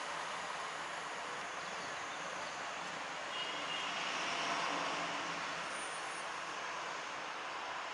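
Outdoor street ambience: a steady wash of noise with a road vehicle passing, growing a little louder around the middle and then easing off.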